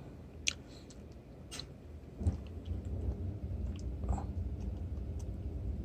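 Two sharp clicks in the first two seconds, then a low steady rumble with a few faint ticks from about two seconds in: handling noise of a hand pressing a small plastic figure part in place with a screwdriver.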